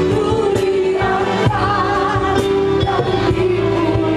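Live amplified gospel worship music: voices singing over sustained instrumental accompaniment with repeated drum-like strikes.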